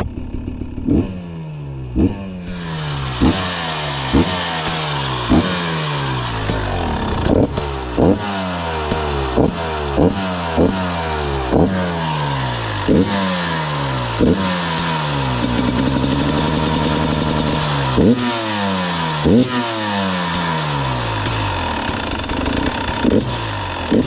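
Dirt bike engine revved in quick throttle blips about once a second, the revs falling away after each. One rev is held for about two seconds just past the middle.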